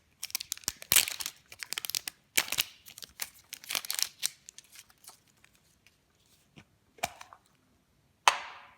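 Wrapper of a toy surprise egg being torn open and crinkled by hand, with dense crackling for the first few seconds and then scattered rustles. A single sharp crack near the end.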